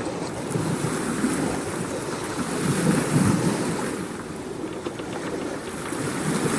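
Rushing wind and water noise, swelling with low rumbles about three seconds in and again near the end.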